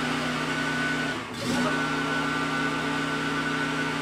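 Portable gasoline generator's small engine running steadily with a constant hum, dropping out briefly about a second in and then picking straight back up.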